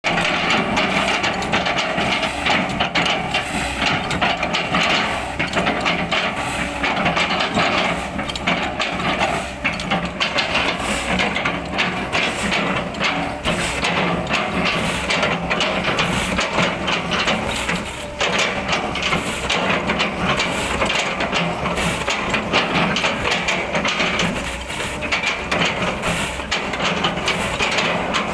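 Kobelco excavator running hard while chipping an oil palm trunk, its engine under load with a dense crackle of frequent knocks and cracks from the wood.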